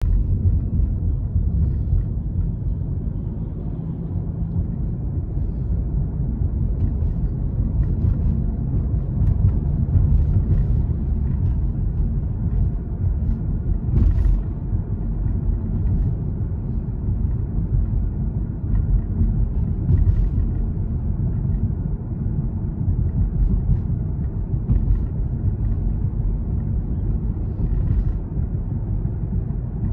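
Steady low rumble of a car's tyre, road and engine noise heard from inside the cabin while driving, with a few faint clicks.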